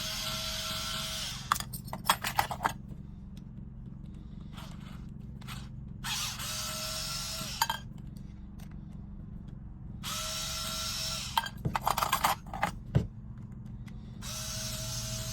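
Small electric screwdriver running in four short bursts of about a second and a half each as it backs out clipper blade screws, each of the first three bursts followed by a quick run of sharp clicks.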